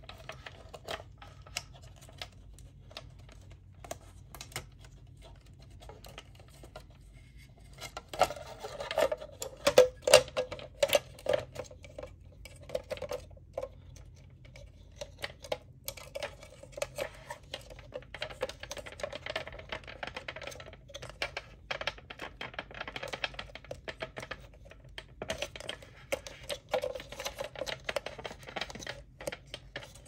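Hard plastic parts of a Dyson Pure Cool Me BP01 fan housing being handled and worked apart: irregular clicks, taps and light rattles, sparse at first and busier from about eight seconds in.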